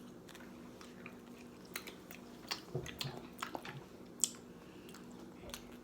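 A person chewing food close to the microphone: faint, irregular wet smacks and mouth clicks over a low steady hum.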